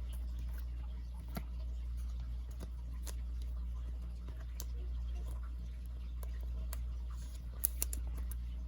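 Light scattered taps and rustles of trading cards being handled, with a couple of sharper clicks near the end, over a steady low hum.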